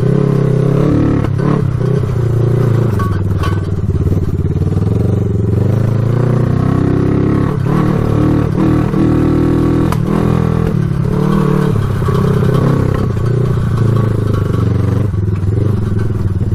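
1974 Honda CB360's air-cooled parallel-twin engine running under load while being ridden over rough ground, its pitch rising and falling with the throttle, with a few knocks and rattles over the engine. Running without its airbox, it won't rev out.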